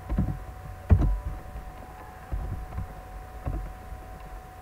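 A few short clicks and knocks from a computer mouse and desk, the loudest about a second in, over a faint steady electrical whine.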